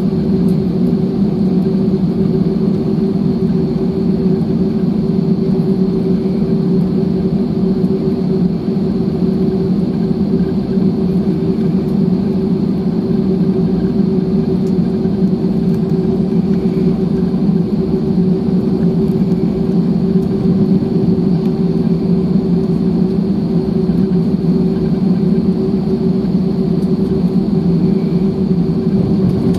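Steady cabin noise inside an Airbus A320-214, its two CFM56-5B engines running at an even power with a constant hum and a steady mid-pitched tone above it.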